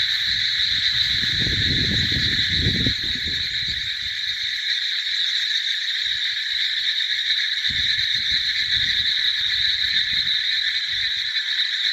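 Dense chorus of many frogs calling at once, a steady high-pitched din that never lets up. Low rumbling comes and goes underneath in the first few seconds and again in the second half.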